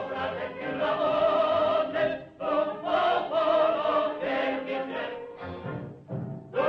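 Music of several voices singing together, choir-like, in held phrases about a second long broken by short gaps.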